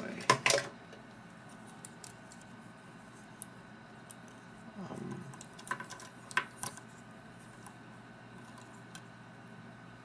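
Hard plastic parts of a Transformers Dark of the Moon Deluxe Class Air Raid figure clicking and knocking as its limbs are moved into place. A quick group of sharp clicks comes about half a second in, then a few single clicks around six seconds in.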